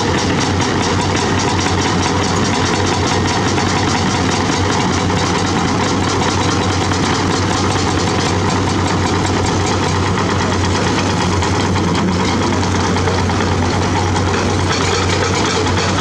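Diesel engines of excavators and crawler bulldozers running steadily together in a dense, even drone with a fine regular engine pulse.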